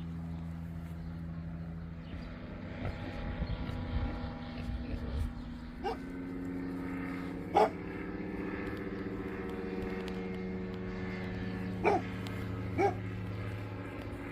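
A plane's engine droning steadily overhead, its pitch shifting partway through. A dog barks once about halfway and twice in quick succession near the end.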